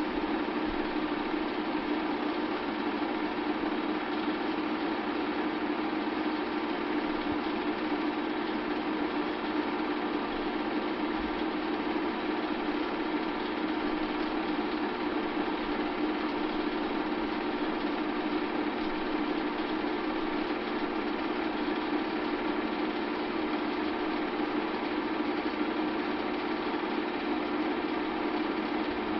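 Bell & Howell 8mm film projector running during playback: a steady, unbroken mechanical whir from its motor and film mechanism.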